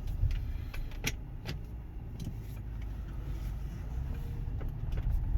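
VW Touareg V10 TDI diesel driving slowly: a steady low engine and road rumble, with a few short light clicks. The faint grinding the vehicle makes at idle in drive is not present while it is moving.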